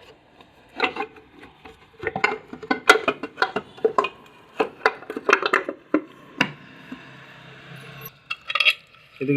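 Irregular metallic clinks and knocks as the scooter's engine side cover and tools are handled and fitted back onto the crankcase, with a short lull about two thirds through.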